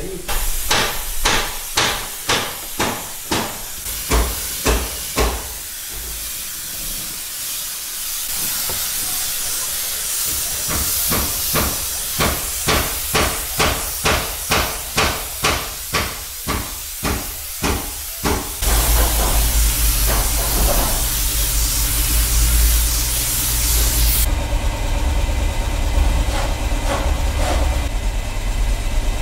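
Hammering on building work, about two blows a second in several bursts, followed about two-thirds of the way in by a steady hiss over a low machine hum.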